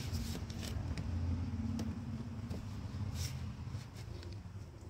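A rubber heater hose being twisted and worked on its plastic coolant connector by a gloved hand: scattered small clicks and creaks over a steady low hum.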